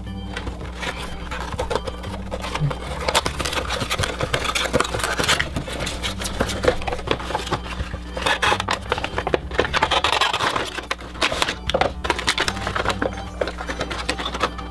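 Irregular crinkling and clicking of toy packaging being handled and opened, over quiet background music.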